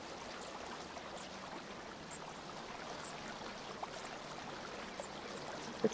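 Steady low hiss of background room tone and microphone noise, with a few faint, short high ticks scattered through it.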